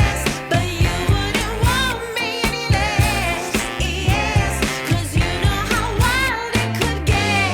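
Background pop song: a singer over a steady beat.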